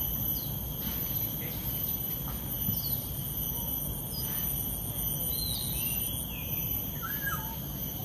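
Outdoor ambience of insects and birds: insects keep up several steady high-pitched drones, with a fast high trill through the middle, while birds give short scattered chirps and quick rising and falling calls over a low steady rumble.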